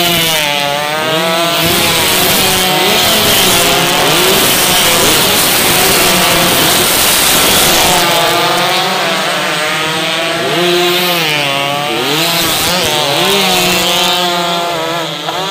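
Several 116cc underbone racing motorcycles passing at race speed, their engines wailing and overlapping as each one's pitch rises and falls through the gears.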